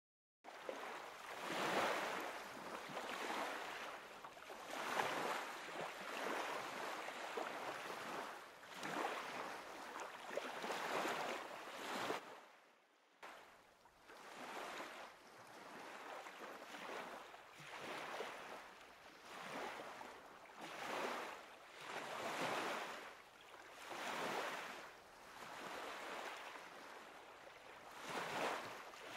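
Small lake waves lapping and splashing against a boat's hull, rising and falling in swells every one to two seconds.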